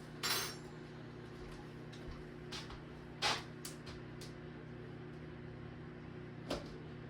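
Kitchen handling sounds: a few sharp knocks and clinks of cupboards or dishes, the loudest about a quarter second in and another about three seconds in, over a steady low hum.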